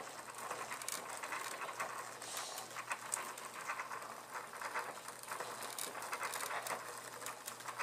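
Roller chain and bicycle-type sprockets on a homemade wooden power-wheel rig rattling and clicking irregularly as the wheel turns, over a faint steady low hum.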